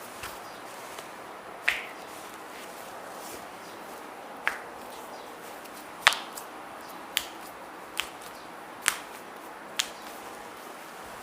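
A series of sharp joint cracks from a chiropractic manipulation: about seven short pops spread irregularly over eight seconds, the loudest about six seconds in.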